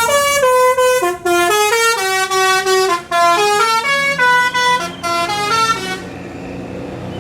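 Basuri telolet bus horn, a set of musical air horns, playing a tune of stepped notes, at times two notes together, then stopping about six seconds in.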